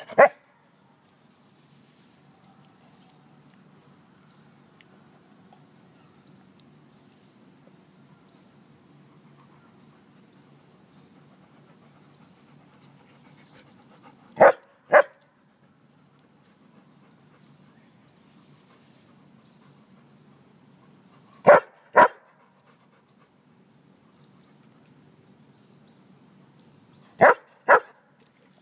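Golden retriever barking: one bark at the start, then double barks, each pair about half a second apart, around halfway through, about three-quarters through and near the end, with long quiet gaps between.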